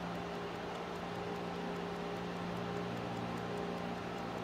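Faint, rapid, even ticking of a small travel clock's cylinder escapement, several ticks a second, over a steady low hum.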